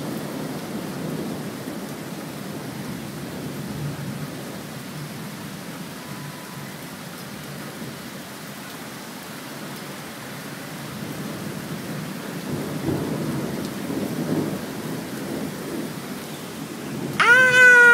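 Steady rain with low thunder rumbling, fading after the start and swelling again later. Near the end a cat gives one loud meow.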